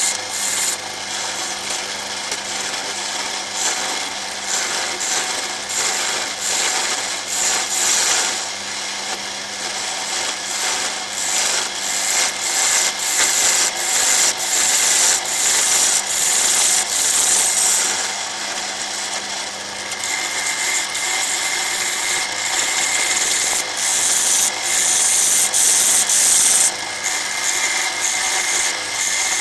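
A turning tool cutting the face of a large jacaranda bowl blank spinning on a wood lathe: a continuous scraping cut that surges and eases over and over as the tool is worked across the wood, over a steady low hum from the lathe's belt-driven motor.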